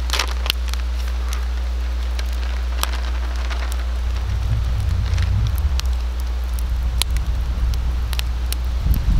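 Campfire crackling with scattered sharp pops over a steady low hum; from about four seconds in, a louder low rumbling comes and goes.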